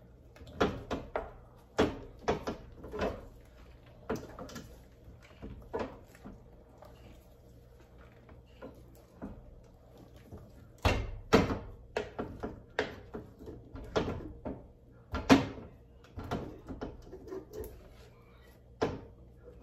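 Spatula beating and stirring stiff dhido porridge in a small saucepan: irregular knocks and thuds against the pan with scraping between them, several quick strikes in a row at times.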